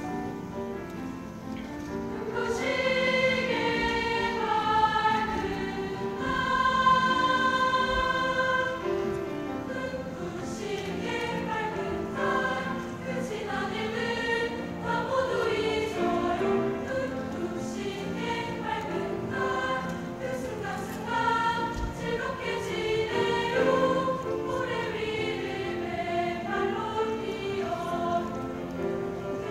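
Girls' choir singing with piano accompaniment; the voices swell in about two and a half seconds in and carry on with long held notes.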